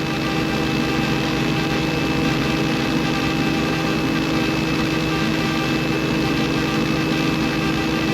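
Helicopter in cruise flight, heard from inside the cabin: a steady engine and transmission whine over a rapid, even rotor beat.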